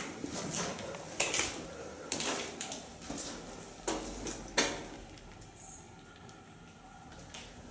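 Irregular knocks and clattering, a handful of sharp hits with the loudest about four and a half seconds in, then quieter after five seconds.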